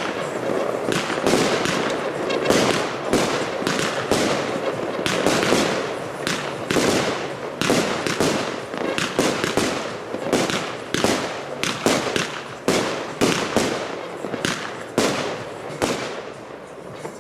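Paired consumer firework batteries (cakes) firing: rapid sharp shots and bangs, several a second, over a continuous crackle, thinning out toward the end.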